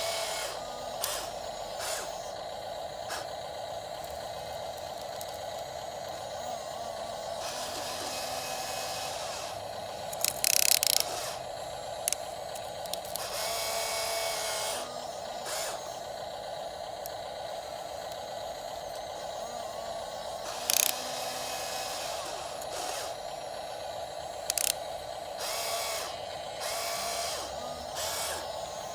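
The small electric gear motors of a radio-controlled excavator whine steadily as it works. Clicks and several short, louder clattering bursts come and go throughout.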